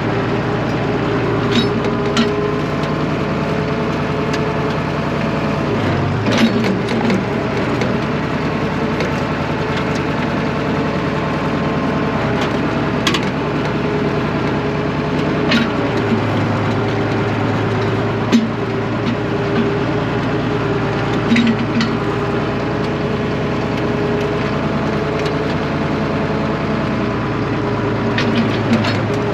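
Tractor engine running steadily, its pitch shifting a couple of times, with scattered sharp clanks and knocks while broken clay tile is being cleaned up.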